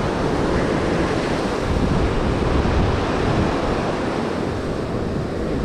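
Steady rush of ocean surf, with wind rumbling on the microphone.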